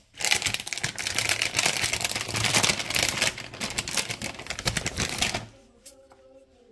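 Plastic marshmallow bag crinkling rapidly as it is handled, stopping about five and a half seconds in.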